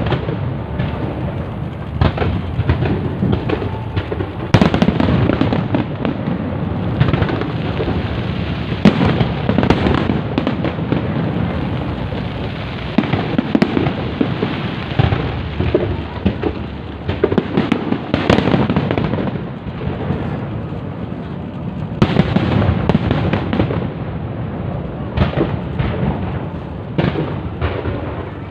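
Fireworks display going off in a dense, unbroken run of booms and crackling bursts, with a few louder bangs standing out.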